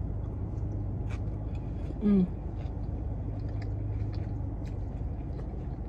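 A car's air conditioning blowing steadily, with a few faint clicks and chewing sounds from eating.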